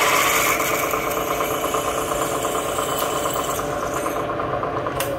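Bridgeport milling machine's spindle running steadily as a 7.7 mm twist drill bores into a stainless steel part, motor hum and cutting noise together.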